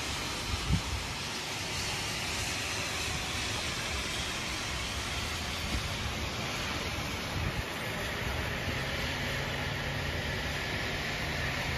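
Steady hiss of rain and of cars driving on wet roads, with a couple of brief low thumps and a low drone coming in during the last few seconds.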